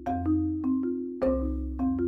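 Background music: a bright melody of short struck notes, each ringing briefly and fading, over a bass line, at a steady beat.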